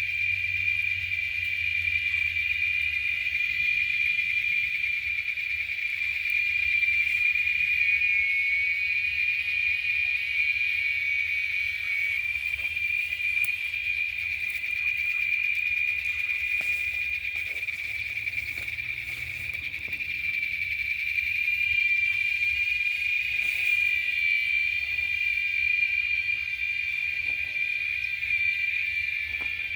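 A steady chorus of insects, a continuous high-pitched tone that holds without a break, with a faint low hum beneath.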